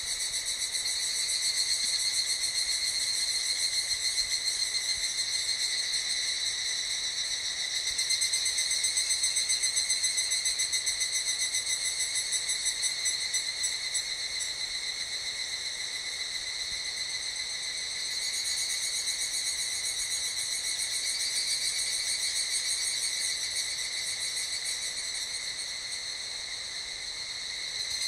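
A chorus of insects making a continuous, shrill, high-pitched buzzing drone with no breaks. It swells a little about a third of the way in and again somewhat past the middle.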